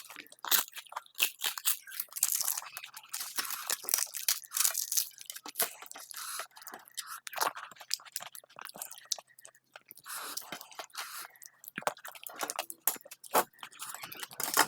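A person chewing and crunching crisp fried food such as papad, with irregular sharp crunches throughout.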